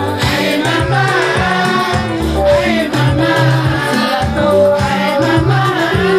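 A woman sings a Lingala-language song through a microphone over amplified dance music with a steady, repeating bass line.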